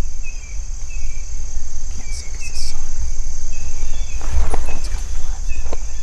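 Insects, crickets or katydids, keep up a steady high buzz over a low rumble. About four seconds in come a few rustling footsteps through weeds.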